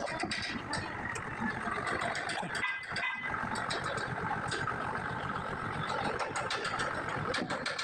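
An engine running steadily, with many small clicks and knocks over it.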